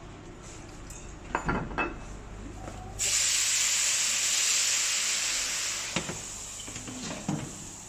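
Water hitting a hot, oiled frying pan of pan-fried buns: a sudden loud hiss and sizzle of steam about three seconds in, slowly dying away. A few clinks of pans and utensils come before it.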